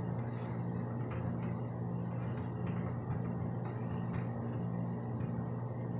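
Steady low hum with a few faint soft taps as hands flatten a ball of corn-flour dough on a greased metal baking tray.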